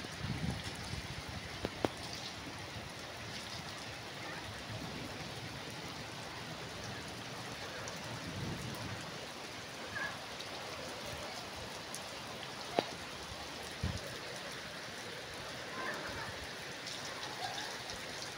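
Steady rain falling on a flat concrete rooftop, an even hiss of drops on the wet surface, with a few sharp single taps of drops hitting something harder.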